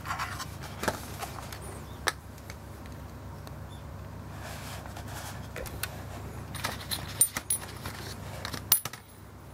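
Scattered small metallic clicks and taps from handling a Leica M3 camera body and its small parts, with a few sharper clicks about two seconds in and near the end.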